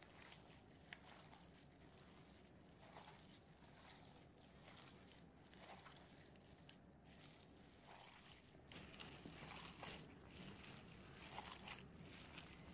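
Faint, irregular squishing and rustling of a gloved hand kneading raw minced meat with spices and flour in a plastic bowl, a little louder in the second half.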